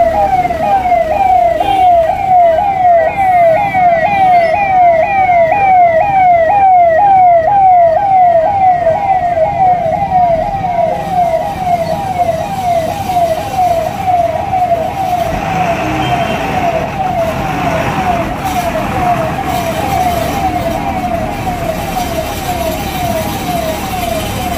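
Police vehicle's electronic siren sounding in a fast repeating pattern, each cycle rising in pitch and then dropping back, about two cycles a second. It grows a little fainter in the second half.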